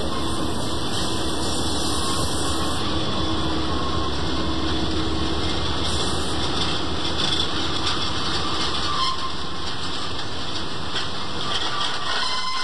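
Diesel locomotive engine running with a steady rumble as the train moves.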